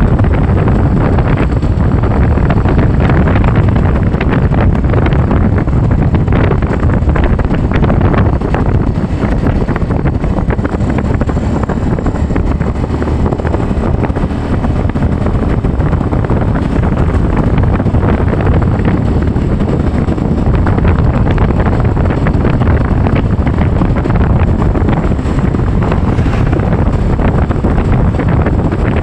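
Steady wind noise on the microphone over a moving vehicle, loud and even throughout, strongest at the low end.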